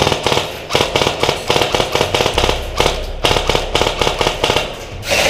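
Airsoft rifles firing on full auto: rapid clicking shots in several bursts with short pauses between them.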